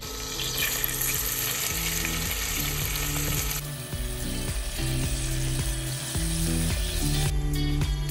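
Sliced onions frying in hot palm oil in a pot, a steady sizzle with stirring from a silicone spatula; the sizzle eases a little about three and a half seconds in.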